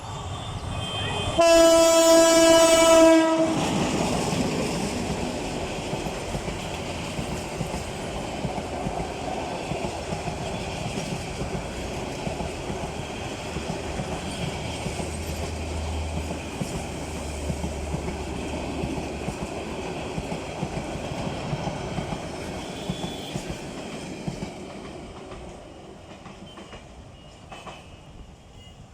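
An express train passing at speed behind a Bangladesh Railway EMD GT18LA-2 diesel locomotive. The locomotive sounds one loud, steady horn blast lasting under two seconds near the start. The coaches' wheels then rumble and clatter over the rails, fading away toward the end.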